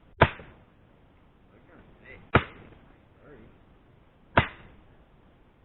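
Sledgehammer striking a wedge driven into a granite block to split it: three sharp, ringing blows about two seconds apart.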